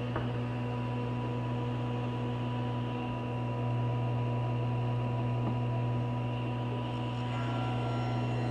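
Table saw running steadily, a constant low motor hum with a few fixed whining tones above it, swelling slightly a few seconds in.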